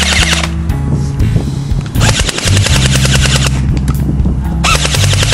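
JG G36C airsoft electric rifle firing full-auto bursts, its metal gearbox cycling at about 15 shots a second. One burst ends about half a second in, a second of about a second and a half starts near two seconds, and a third starts near the end.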